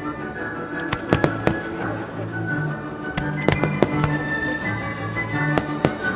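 Aerial firework shells bursting with sharp bangs in small clusters, about a second in, around three and a half to four seconds, and near the end, over the show's background music.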